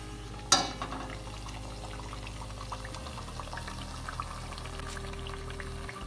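Adhirasam deep-frying in oil on low flame in a steel kadai: a steady, gentle bubbling sizzle with scattered small crackles. A sharp clink of the slotted spoon against the pan about half a second in is the loudest sound, over a steady low hum.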